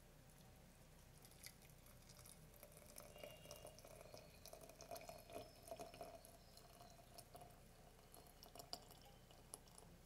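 Faint trickle of water poured in a thin stream from a stainless gooseneck kettle into a glass jar mug, a little stronger in the middle seconds.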